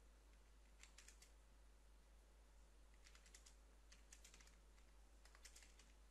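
Faint typing on a computer keyboard: a few key clicks about a second in, then quicker runs of clicks from about three seconds on.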